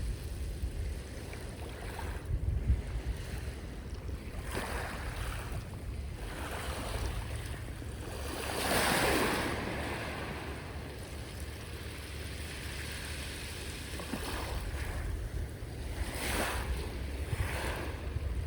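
Ocean waves breaking and washing on the shore in several swells, the largest about halfway through. Wind rumbles on the microphone underneath.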